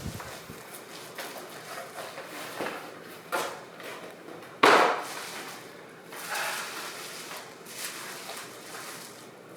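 A few short knocks and clatters, the loudest a single sharp knock about halfway through.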